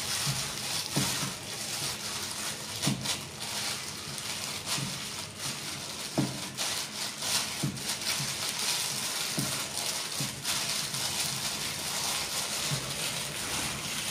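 Raw fish paste being kneaded by a hand in a plastic-bag glove in a pot: wet squishing and plastic crinkling, with irregular soft thuds of the paste against the pot.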